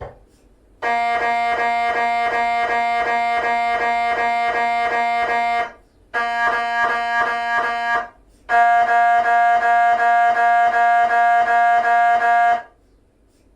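GE 3T MRI scanner's gradient coils running a 3-plane localiser scan: a loud, steady buzzing tone that pulses about four times a second. It comes in three runs of about five, two and four seconds, with short breaks between them.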